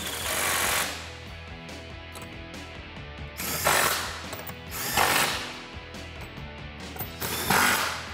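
Cordless ratchet running in four short bursts, spinning down the transmission crossmember bolts.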